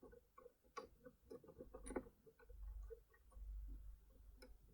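Faint, irregular small clicks, several a second, of a Cisa RS3 rotor pick decoder working the pins inside a Cisa RS3 lock.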